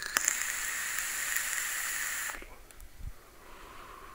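A click, then an e-cigarette's dripper atomizer hissing steadily for about two seconds as the coil fires during a drag. Near the end comes a softer breathy exhale of the vapour.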